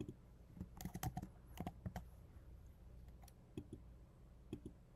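Faint computer keyboard keystrokes and mouse clicks in a few short clusters, as a folder is renamed and its new name typed in.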